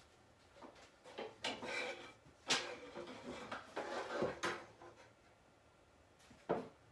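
Objects being rummaged through and handled, rustling and clattering, with a sharp wooden knock about two and a half seconds in and another near the end.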